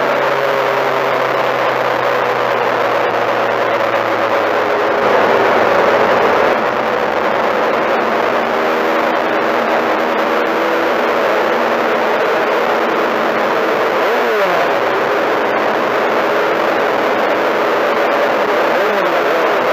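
Four-cylinder Mini-Stock race car engine running hard at race speed, heard from inside the car. It is loud and steady, and the engine pitch dips and climbs back twice, about two-thirds of the way through and near the end.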